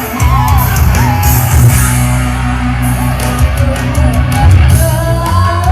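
Loud rock music from a band: electric guitar, heavy bass and drums with repeated cymbal crashes, with a voice singing.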